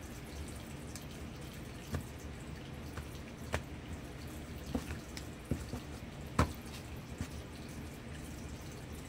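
A deck of tarot cards being shuffled and handled: a few light, irregular clicks and taps over a steady low hum. The loudest tap comes a little past the middle.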